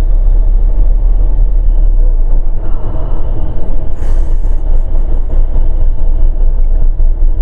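Loud, steady low rumble of a moving car heard from inside, so strong it nearly overloads the phone's microphone, with a brief hiss about four seconds in.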